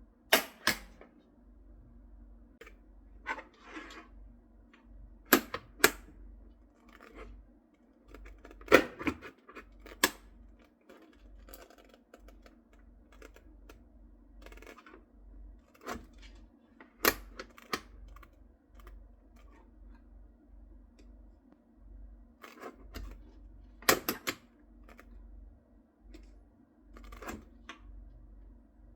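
Scattered sharp clicks and knocks at uneven intervals from parts of a welding mask being handled and fitted by hand, with a steady faint hum underneath.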